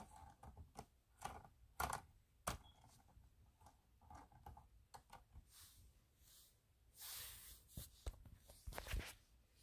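Scattered light clicks and knocks of plastic Lego pieces being handled and turned by hand, with a few sharper knocks standing out.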